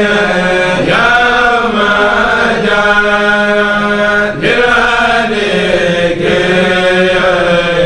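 Male voices of a Mouride kourel chanting a khassida, in long held notes that slide from one pitch to the next without a break.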